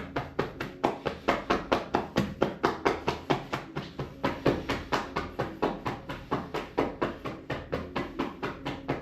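Rapid percussive massage: hands slapping and chopping on a person's back at about four strikes a second, in an even rhythm.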